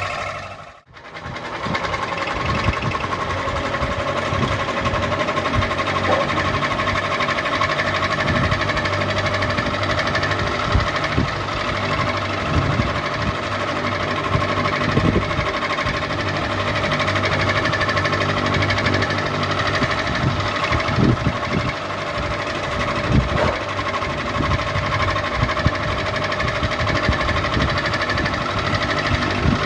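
Ceiling fan running: a steady motor hum with irregular rattling knocks. The sound cuts out briefly about a second in.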